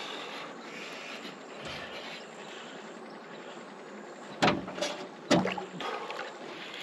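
Steady soft hiss of wind and water, broken about two-thirds of the way through by two loud sharp knocks about a second apart, the second with a brief low ring after it.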